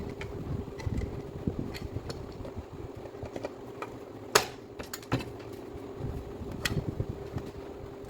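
Scattered clicks and clinks of tools and small hard parts being handled, the sharpest a little over four seconds in, over a steady background hum.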